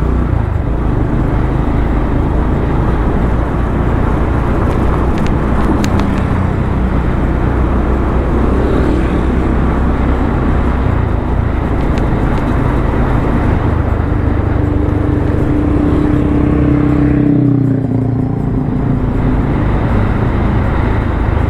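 Motorcycle ride heard from the rider's camera mic: the engine runs under steady wind and road rush. The engine note climbs for a few seconds and then drops away about seventeen seconds in, as the throttle eases.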